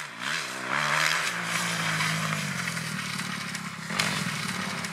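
Dirt bike engines revving: the pitch blips up and down a few times in the first second, then the engines run on steadily.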